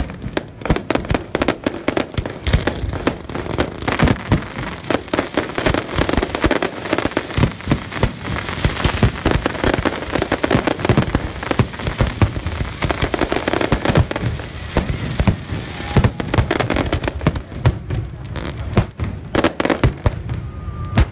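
Fireworks display in a rapid barrage: many shells bursting in quick, overlapping bangs, with stretches of dense crackling in the middle. The bangs thin out near the end.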